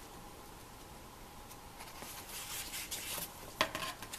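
Faint rustle of a thin paper page being turned in a children's picture book, with two sharp clicks near the end.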